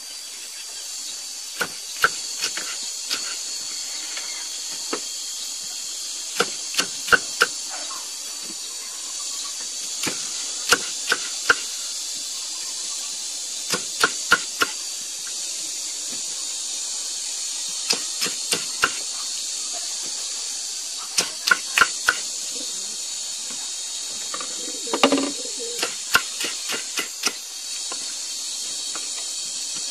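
Kitchen knife cutting pineapple on a wooden chopping board: sharp knocks of the blade striking the board, in small clusters of two to four, over a steady high hiss.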